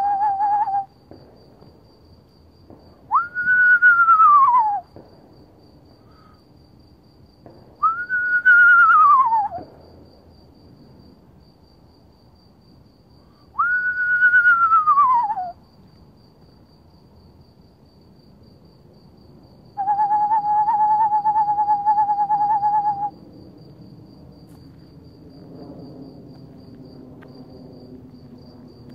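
Eastern screech owl calls given to draw owls in. The end of a steady, warbling monotone trill is followed by three descending whinnies a few seconds apart, each rising sharply and then sliding down. Another steady trill of about three seconds comes near the end, all over the even, pulsing chirping of crickets.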